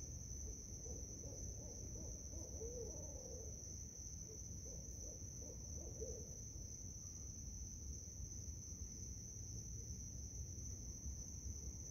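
Barred owl hooting faintly at a distance: a series of short hoots, one drawn out with a rising-and-falling inflection, ending a little after halfway through. A steady high insect trill runs underneath.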